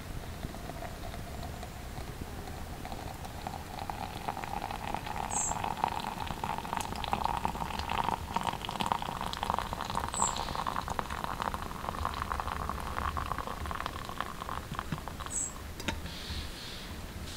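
Water poured from a small camping kettle in a thin stream into a cylindrical dripper on a steel cup, a steady trickling that rises slightly in pitch as the vessel fills and stops near the end. A bird gives a short high chirp every few seconds.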